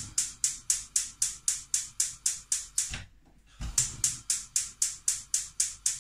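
Gas hob's electric spark igniter clicking rapidly, about six clicks a second, as the burner is lit under the pan. It pauses briefly about three seconds in, then clicks on again.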